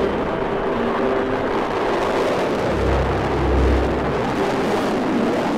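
Eurofighter Typhoon's twin Eurojet EJ200 turbofans roaring during a display flight, a steady rushing jet roar with a deep rumble that swells about three seconds in.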